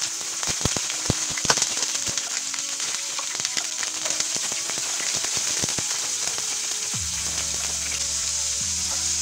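Potato and carrot cubes frying in hot oil in a nonstick pan: a steady sizzle, with many sharp pops and crackles over the first few seconds as the pieces drop in, settling to an even sizzle.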